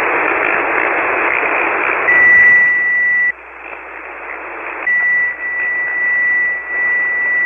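Hiss from a single-sideband receiver on the 40-meter band, with a steady high whistle over it. The whistle is the carrier of a station tuning up on the frequency that is in use. It comes in about two seconds in, drops out about a second later, and returns about five seconds in.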